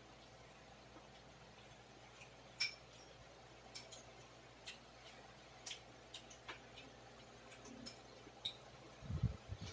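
Faint, sparse clinks of cutlery against plates and glassware during a meal, about seven light ticks spread through it, the sharpest about two and a half seconds in. A few low knocks come just before the end.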